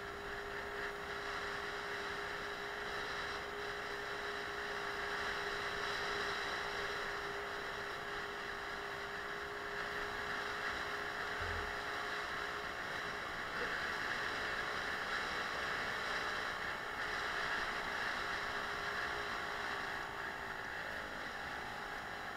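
Suzuki Let's 4 scooter's small four-stroke single-cylinder engine running at a steady cruise, with a constant drone over a rush of wind and road noise. Near the end the engine note falls away as the scooter slows.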